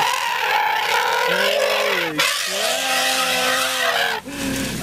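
A motor vehicle driving along, its engine note rising and falling slowly over a second or two, over a steady hiss of road and wind noise.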